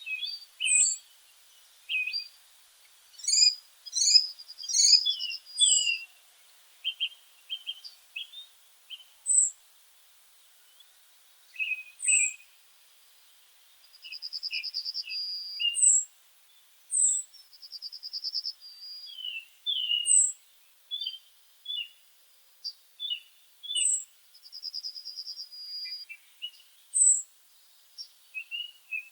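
Songbirds singing and calling: many short high chirps, a thin very high note repeating every few seconds, and buzzy trills about a second long.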